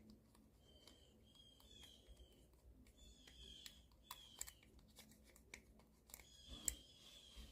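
Faint, repeated short scraping strokes of a seam ripper's sharp metal point on a ball mouse's plastic roller, picking off caked dirt. Each stroke gives a thin high-pitched scrape, with small clicks between strokes, the loudest of them about two-thirds of the way through.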